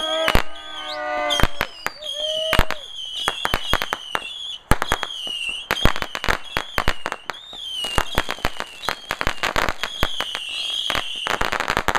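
Consumer fireworks going off in quick succession: many sharp bangs and crackles. Whistles glide up and down in the first second or so, and a wavering high whine runs underneath.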